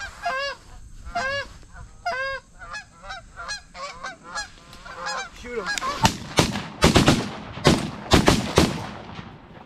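A flock of Canada geese honking repeatedly, then, about six seconds in, a rapid volley of shotgun blasts, several within three seconds, from more than one gun as the hunters shoot into the flock, with the geese still honking beneath the shots.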